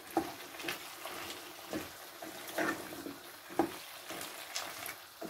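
Wooden spatula stirring potato slices in thick gravy in a cooking pan: wet scrapes and light knocks against the pan, irregular strokes about once a second.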